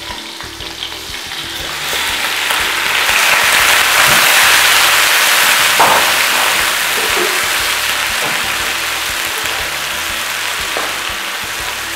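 Raw chicken pieces sizzling in hot oil in a metal wok. The sizzle swells about two seconds in as the chicken hits the oil, then slowly eases, with a metal spoon knocking and scraping against the pan as the pieces are stirred.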